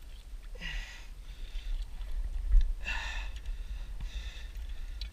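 A man's short falling grunt about half a second in and a sharp breathy exhale about three seconds in, over a steady low rumble.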